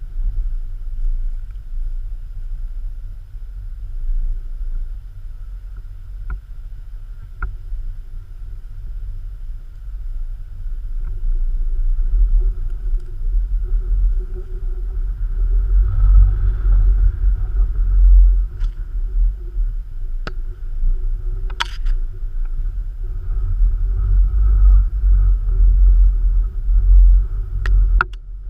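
A colony of bees in a tree hive humming steadily, growing stronger from about halfway in, beneath a heavy low rumble, with a few sharp clicks.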